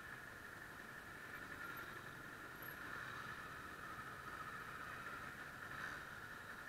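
Kawasaki ER-6f's parallel-twin engine running at low speed, heard faint and muffled as a steady hissing drone that dips slightly in pitch about halfway through.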